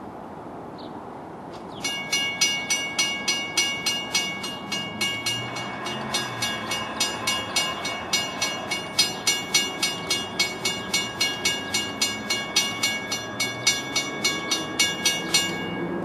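Railroad grade-crossing warning bell ringing, about three strikes a second, starting about two seconds in and stopping shortly before the end, warning road traffic while the crossing gate arms move.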